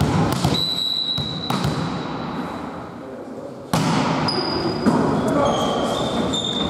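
Indoor volleyball rally: sharp slaps of hands striking the ball, one sudden hit about three and a half seconds in and another about a second later, among players' calls. A high steady whistle-like tone lasting about a second comes shortly after the start.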